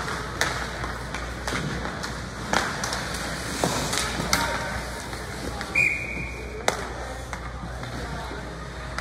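Sounds of play in a youth game in a large hall: irregular sharp knocks and thuds, about one a second, over spectators' voices, with a short high whistle blast about six seconds in.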